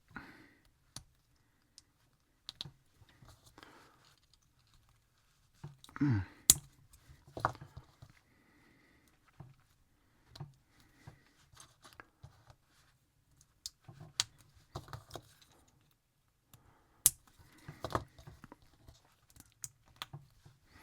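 Small plastic model-kit parts, wheels among them, being handled and pressed together: scattered light clicks with several louder snaps. A brief low sound, falling in pitch, comes about six seconds in.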